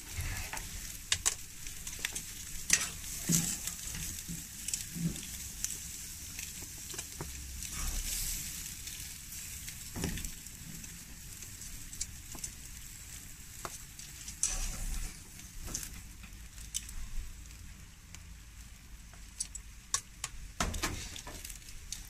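Pork chops sizzling on the grate of a gas grill's infrared burner, a steady high hiss, with scattered sharp clicks and knocks as the chops are lifted off the grate onto a plastic tray.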